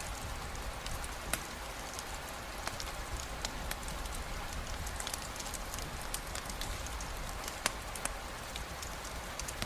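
Steady rain falling, with many scattered sharp clicks and drips on top; two clicks, one about a second and a half in and one near the end, stand out.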